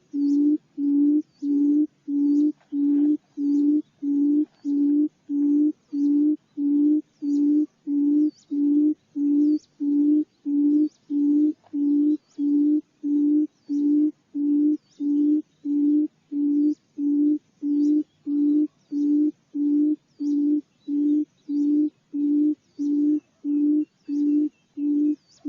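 Barred buttonquail's low booming call: a long, even run of short hooting notes, about two a second, with no break.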